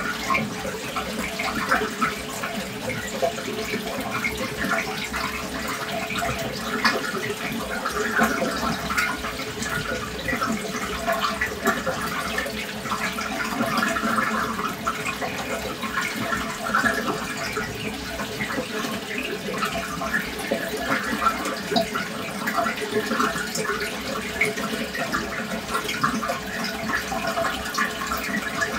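Aquarium water circulating: a steady splashing, trickling stream of water with a constant low hum underneath.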